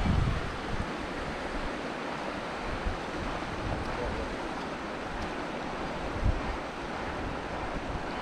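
Wind blowing steadily across open water, with low buffeting gusts on the microphone right at the start and again about six seconds in.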